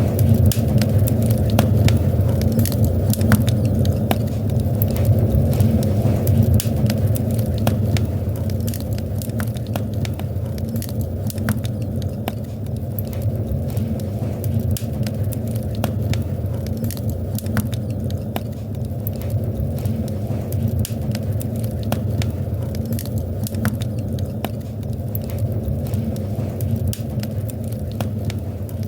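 Wood fire in a fireplace crackling, with frequent sharp pops and snaps over a steady low rumble of the burning fire.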